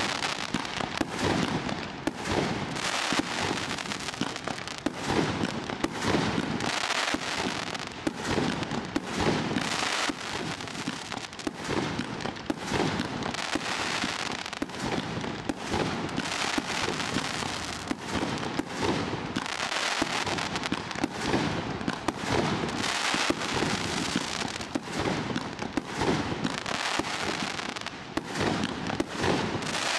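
Firework mine/barrage cake (Galactic Crackle Star, 145 shots) firing shot after shot without pause, its bursts overlapped by the dense crackle of crackling stars.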